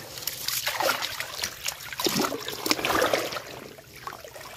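Shallow water splashing and trickling in irregular bursts, heaviest in the middle and easing off near the end.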